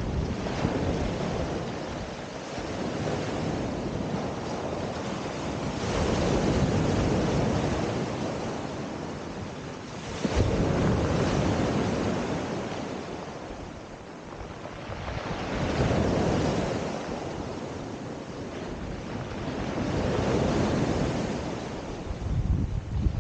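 Sea surf breaking and washing up a pebble beach, the rush of water swelling and falling away every four to six seconds, with one sharp surge about ten seconds in.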